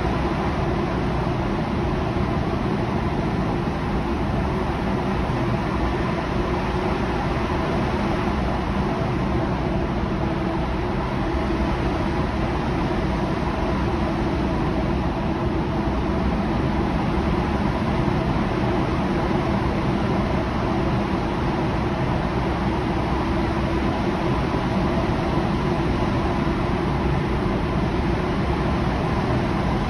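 Steady road noise from a car driving through a road tunnel, heard from inside the cabin: tyre roar and engine drone with a faint constant hum, unchanging throughout.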